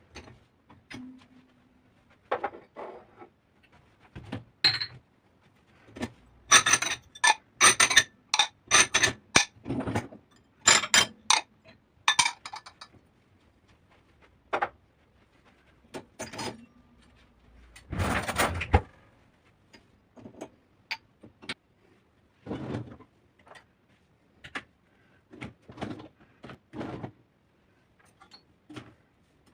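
Kitchen dishes and utensils clinking and knocking in a series of separate strikes. There is a quick run of ringing clinks in the middle and a longer clatter later on.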